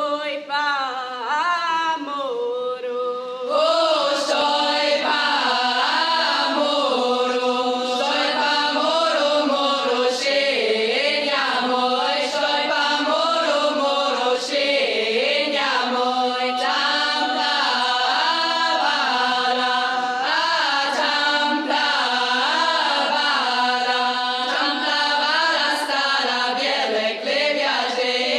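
Girls' choir singing a folk song a cappella, with no instruments. It grows fuller and louder about three and a half seconds in.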